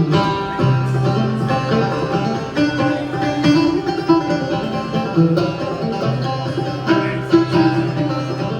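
Solo clawhammer banjo playing an old-time tune, a quick, even picking rhythm.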